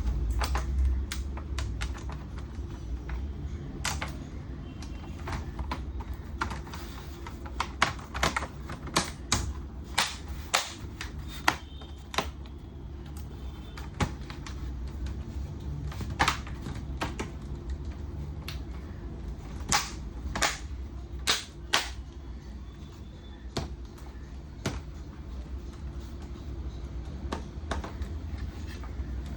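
Irregular sharp clicks and taps of plastic and small tools as a monitor's plastic casing is put back together, with a few quick runs of clicks between about 8 and 12 seconds in and again around 20 seconds in.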